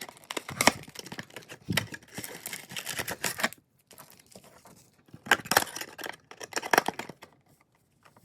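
A cardboard blaster box of trading cards being torn open and its wrapped packs handled: rustling, tearing and crinkling in two bursts, the second starting about five seconds in.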